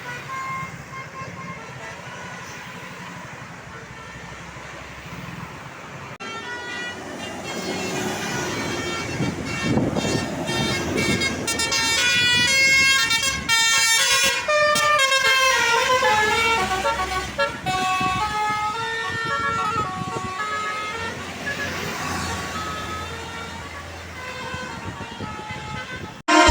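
Tour bus 'telolet' multi-tone air horn playing a quick tune of short stepped notes as the bus passes. It comes in after a few seconds of road noise, grows loudest in the middle and fades away, over the low running of the bus engine.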